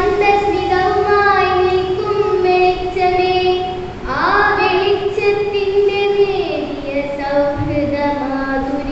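A young girl reciting a Malayalam poem in a sung, chanting style, holding long notes with a sweeping rise in pitch about four seconds in.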